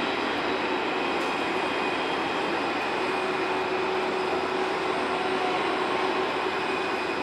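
Jet airliner engines running, a steady loud rush with faint steady whine tones in it that does not rise or fall.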